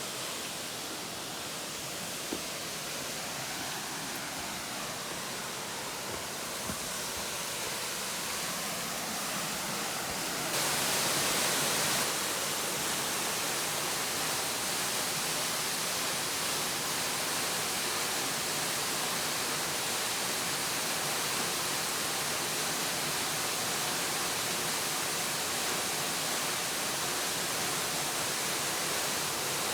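Steady rushing of flowing river water, an even hiss that swells briefly near the middle, with a couple of faint clicks.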